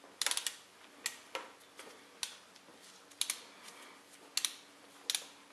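Footsteps walking away across a hard floor: separate sharp taps, irregular, about one every half second to a second. A faint steady hum comes in under them about two seconds in.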